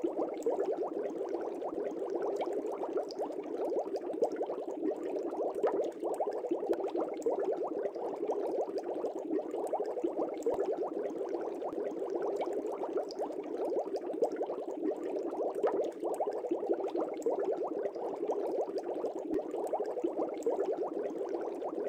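Water bubbling steadily and evenly, a dense crackle of small bubbles like an aquarium's air bubbler, without pauses.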